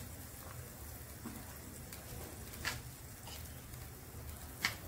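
Faint steady sizzle of brinjal (eggplant) rounds frying in hot oil, with two sharp clicks, one about two and a half seconds in and one near the end.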